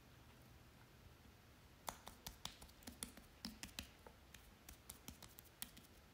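Hands patting skincare product into the face, quick light slaps of palms and fingertips on moist skin. The faint sharp pats begin about two seconds in and come irregularly, about four a second.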